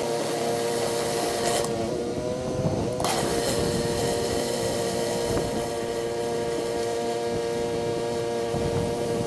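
Pressure washer engine running steadily under a constant hiss of water spray. About one and a half seconds in, the spray cuts out for roughly a second and the engine pitch dips slightly; then the spray comes back.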